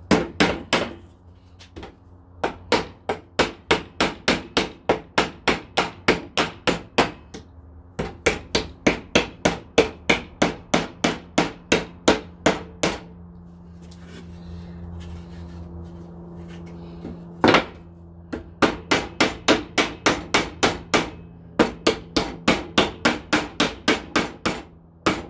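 Hammer striking the nails in a wooden fence board, knocking them back out, in long, even runs of about three blows a second. The blows pause for a few seconds in the middle, broken by a single strike.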